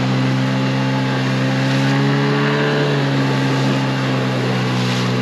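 Small outboard motor on a dinghy running steadily under way, a level engine hum with water and wind rush behind it.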